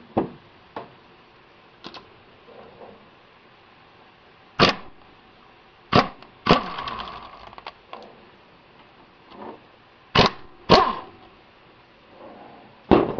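Sharp metallic knocks and clacks of a socket wrench working the 14 mm idler pulley bolts on a Subaru 2.5 SOHC flat-four's timing-belt drive. There are about eight separate strokes, each a second or more apart, some with a short ringing tail.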